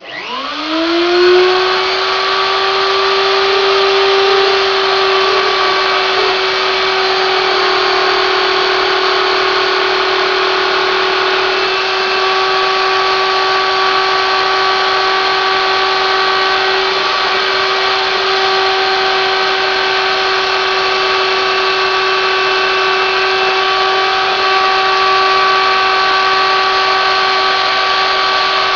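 CNC milling spindle spinning up in about a second to a steady high whine with overtones, then running at constant speed over a steady hiss while it mills steel with a 3 mm two-flute cutter.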